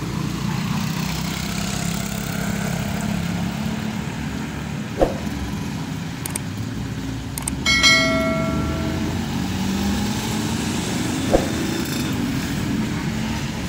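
Street traffic passing with a steady low rumble. About halfway through, a vehicle horn sounds once for about a second and a half. Two short sharp knocks are heard, one earlier and one near the end.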